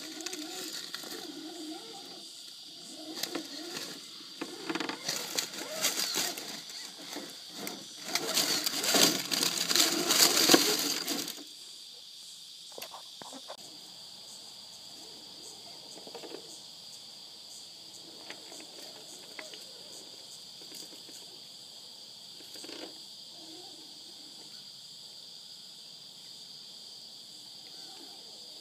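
Steady high-pitched insect chorus throughout. From about three seconds in, loud rustling and knocking noise, the loudest sound, stops suddenly near the middle, after which only the insect drone and a few faint ticks remain.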